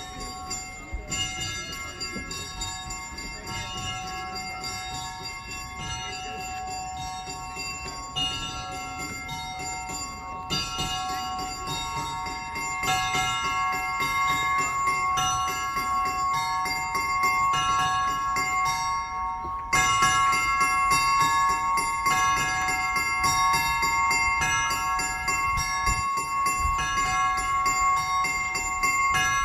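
Orthodox church bells being rung: several bells struck in a quick, repeating, overlapping pattern, each stroke ringing on. The peal grows louder about ten seconds in and again sharply about twenty seconds in.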